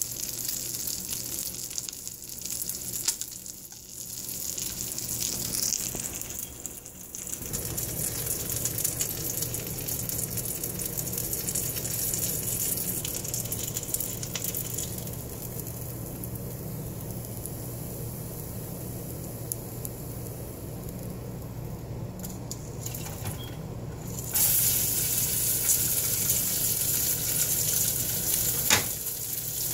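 Bacon-wrapped grilled cheese sandwich frying in a skillet, the bacon fat sizzling steadily. The sizzle gets louder near the end.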